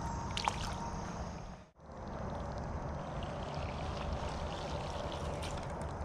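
Shallow creek water trickling steadily, with a few small splashes near the start as a smallmouth bass is lowered back into the water. The sound cuts out briefly just under two seconds in, then the steady trickle resumes.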